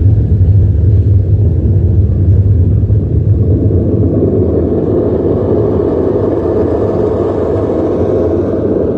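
Loud, steady low rumble like a vehicle engine, played as a film sound effect; a higher rushing layer swells in about three and a half seconds in.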